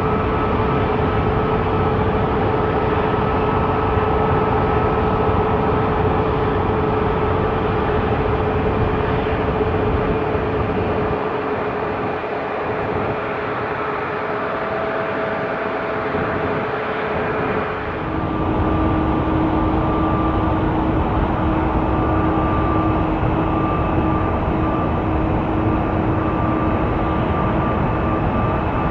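Jet airliner engines on landing approach: a steady roar with high, level whining tones. About eighteen seconds in, the sound switches abruptly to a different, lower-pitched whine.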